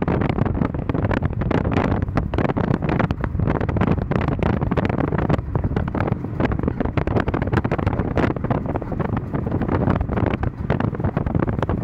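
Road and wind noise inside a moving Chrysler PT Cruiser, with a rough, irregular scraping from the passenger-side wheel, its cause not yet found.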